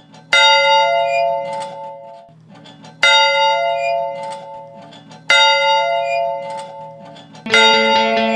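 Bell-like tone struck three times, evenly spaced, each ringing out and fading over a low steady drone. Near the end a fuller music track comes in.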